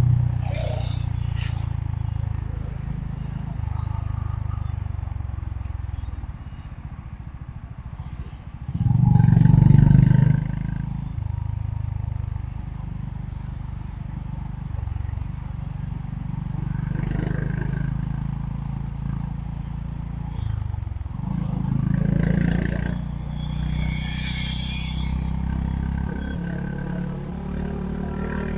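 Honda H'ness CB350's single-cylinder engine running under way, its pitch stepping up and down with throttle and gear changes. It eases off for a couple of seconds, then surges loudly under a burst of throttle about a third of the way in.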